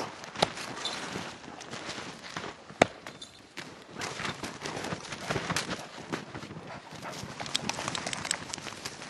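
An axe chopping down into packed snow and ice. There are two sharp knocks, the louder one nearly three seconds in, among many smaller crunching and scraping strikes.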